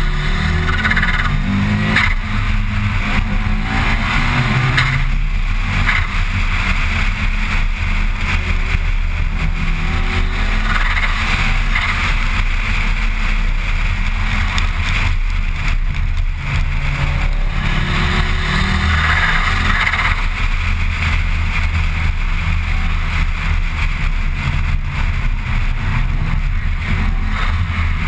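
Mitsubishi Lancer Evolution IX's turbocharged 2.0-litre four-cylinder engine running while the car drives, with road noise, heard from inside the car. The engine note steps up and down in pitch as the revs change, and the hiss grows louder at several points.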